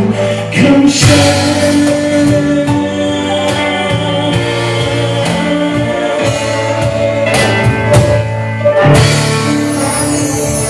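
A live pop band playing with a male singer singing lead, backed by electric bass, keyboard, drums and a brass horn.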